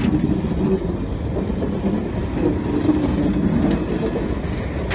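SNCF passenger coaches rolling past close by: a steady low rumble of wheels on the rails, with a couple of sharp clicks.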